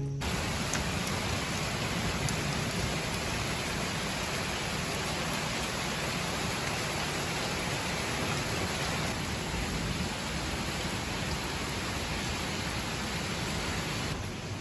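Steady rain falling on a lawn and garden shrubs: an even hiss with a few faint drop ticks, easing slightly near the end.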